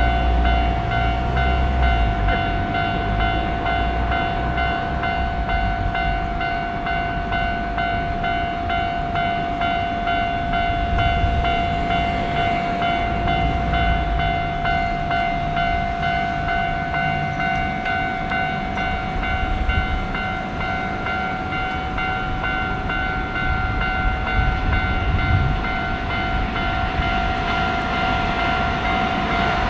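Japanese level-crossing warning bell ringing steadily while a Keikyu train rumbles through the crossing.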